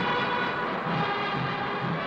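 Background music with sustained chords over a steady low beat.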